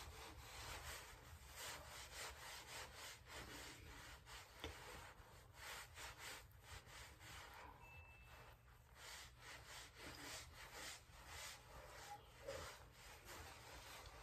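Faint, repeated soft swishes of fingertips rubbing face cream into the skin of the cheeks.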